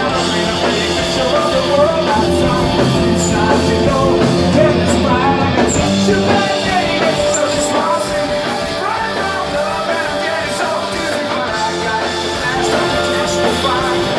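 Rock band playing a song live, at a steady loud level.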